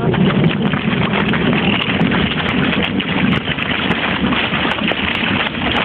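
Feet splashing and wading through a rainwater puddle, a continuous rush of water noise with many small splashes, over rain and wind on the phone's microphone.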